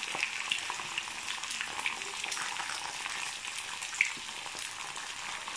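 Eggs frying in a nonstick pan: a steady sizzle full of small crackles, with one sharper pop about four seconds in.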